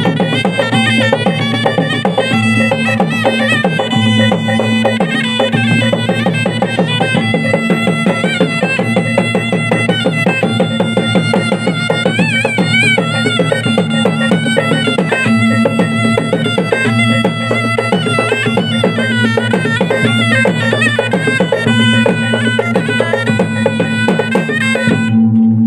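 Tunrung pamanca ensemble playing: fast, dense gendang drumming under a shrill reed-pipe (pui-pui) melody over a steady low drone. Just before the end the drums and pipe stop and only a steady ringing tone remains.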